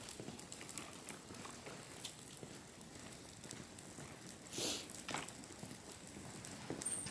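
Faint scattered ticks and rattles from a walk with a pet stroller, the clicking of wheels and steps on pavement, with a brief rustle about four and a half seconds in.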